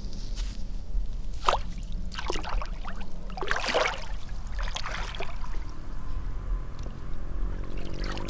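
Bare feet wading into shallow water: several separate splashes and sloshes in the first half, over a steady low rumble.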